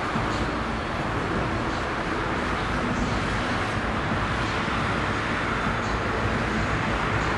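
Steady outdoor background rumble of road traffic, with no bangs or launches.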